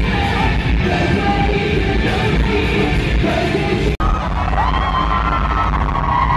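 Live rock band playing with a singer. The sound cuts abruptly about four seconds in, after which a singer holds one long note over the band.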